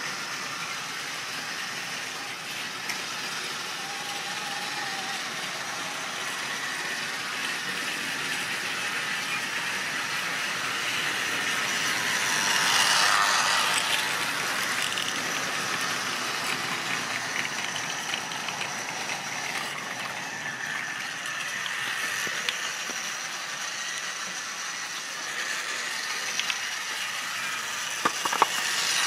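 Model train running on sectional track, a steady rattle and clicking of small wheels over the rail joints. It grows louder as a rake of red wagons passes close by about halfway through, then eases off. A few sharp knocks come near the end.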